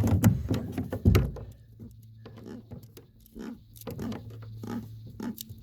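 Irregular clicks, knocks and rustles from handling a big catfish and working a jig out of its mouth, with a short grunt-like vocal sound in the first second.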